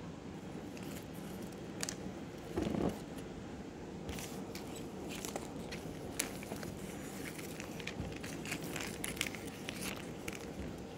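Paper sticker roll being handled and unrolled: crinkling and rustling of the paper strip with many small clicks and taps, and a dull thump about three seconds in.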